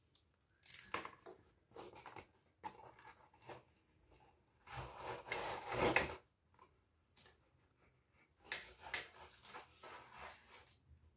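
Cardboard box rubbing and scraping as a folded tripod is slid out of it, in irregular rustles with one longer, louder scrape about five seconds in.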